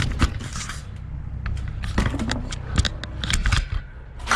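Handling noise: rustling and scattered clicks and taps as a handheld camera is moved against clothing and things are handled in a workshop, over a steady low hum.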